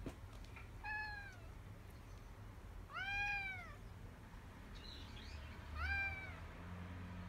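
American Shorthair cat meowing three times, each call rising and then falling in pitch, the middle one the longest; the owner reads the cat as wanting to go outside.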